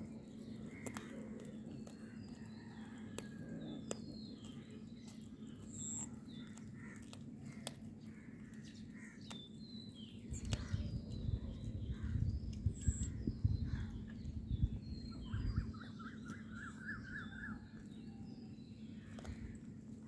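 Wild birds chirping and calling in short high notes, with one quick trill of rapidly repeated notes a little past the middle. Scattered sharp clicks, a steady low hum, and a low rumble from about ten to fifteen seconds in.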